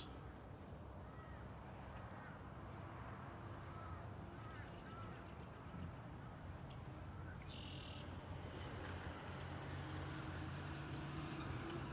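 Faint outdoor ambience with a few scattered, distant bird calls. A low steady hum comes in over the last couple of seconds.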